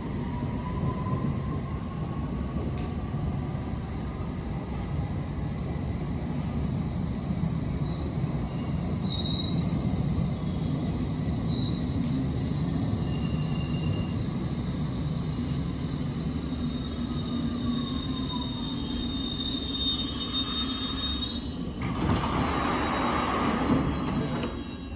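London Underground S7 Stock train pulling in and stopping at the platform: a steady rumble with a traction motor whine that rises, then falls away as the train brakes, and high squeals from the wheels and brakes as it comes to a stop. Near the end a loud rushing burst comes as the doors slide open.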